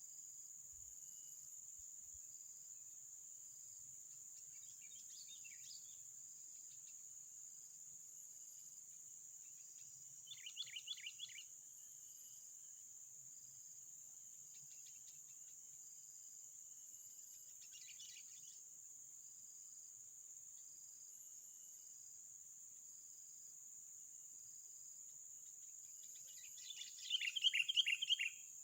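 A bird giving short, rapid trilled calls: brief phrases about 5, 11 and 18 seconds in, and a longer, louder trill near the end. A steady high insect drone runs under them.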